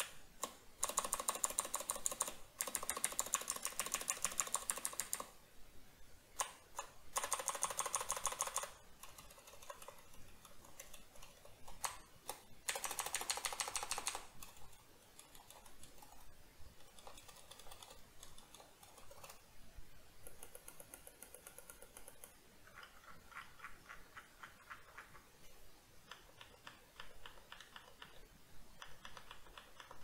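Razer BlackWidow V3 mechanical keyboard with clicky Razer Green switches, its modifier and navigation keys pressed in quick runs of clicks. Three loud runs come in the first half, then quieter, lighter runs of presses follow.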